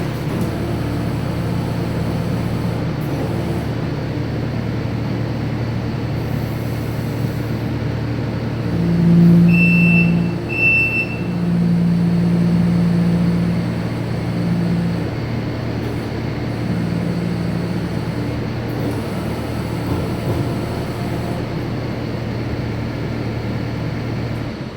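Kubota SVL97 compact track loader's diesel engine running steadily while its hydraulics tilt the hitch; the engine note rises under hydraulic load several times, with two short beeps about ten seconds in. The engine cuts off near the end.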